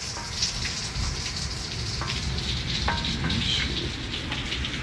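Heavy rain falling on a wet street and porch: a steady hiss with a low rumble underneath, and a couple of sharp drips or taps about two and three seconds in.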